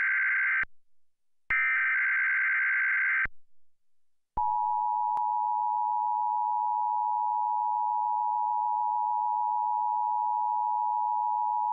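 Emergency Alert System tones. First come two bursts of SAME header data tones, the first cut short, which encode the alert. About four seconds in, the steady two-tone EAS attention signal (853 and 960 Hz) starts and holds, signalling an emergency activation, here a tsunami warning.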